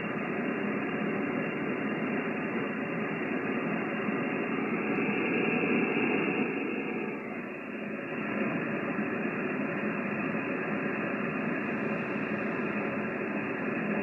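Amateur radio receiver playing band static: a steady hiss with no signal in it, cut off above the low treble, swelling a little louder about five to six seconds in. It is atmospheric noise, as thunderstorms leave the band full of static and very little signal.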